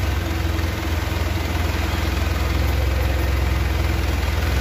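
HELI forklift's engine running steadily while it carries a pallet load of timber, a constant low hum without change in speed.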